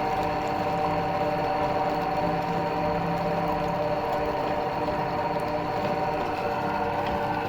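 Electric meat grinder's motor running steadily, a constant whine with no change in speed.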